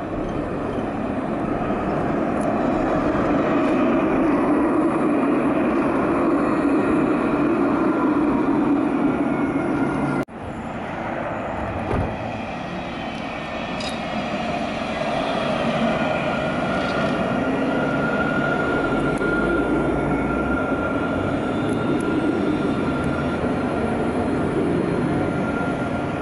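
Alstom Citadis low-floor tram running past on its rails: steady wheel and motor noise that swells as the tram draws near. The sound breaks off about ten seconds in, then a second tram comes by, and a thin steady whine sounds through the later part.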